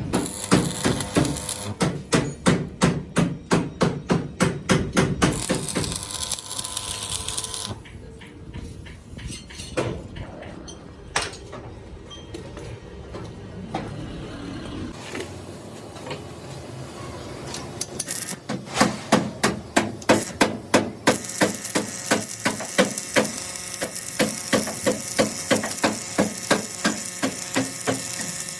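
Hand hammering on metal during a truck rear-axle repair: quick repeated blows, about three to four a second, in one run over the first six seconds and another from about eighteen seconds on, with a few scattered knocks between.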